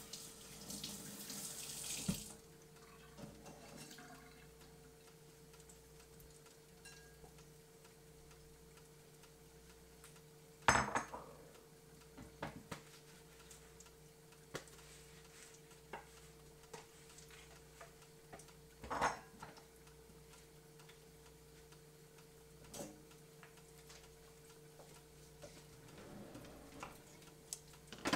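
Spring rolls frying in a covered T-fal electric deep fryer: a soft hiss of bubbling oil over a steady hum, with scattered ticks and a few sharper pops. The hiss is stronger for the first two seconds, and the loudest pops come about eleven seconds in and again near nineteen seconds.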